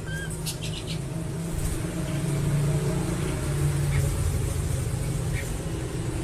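Steady low rumble like distant traffic, with a few short, high bird whistles in the first second and a couple of faint ones later.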